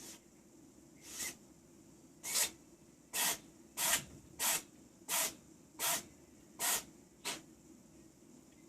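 A cat sneezing in a fit: about ten short, sharp sneezes in quick succession, the fastest about two-thirds of a second apart, the last ones weaker. A sign of cat flu, a feline upper respiratory infection.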